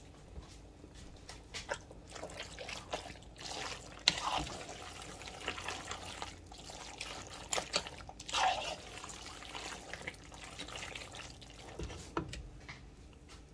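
Wooden spoon stirring fettuccine and chicken in a thick, creamy Alfredo sauce in a pan: irregular wet, sticky squelches with a few light knocks.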